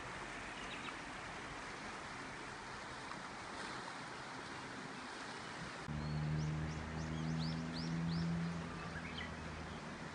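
Outdoor ambience: a steady even hiss for the first six seconds, then a low steady hum with a bird chirping in a quick run of short sweeping notes from about six to nine seconds in.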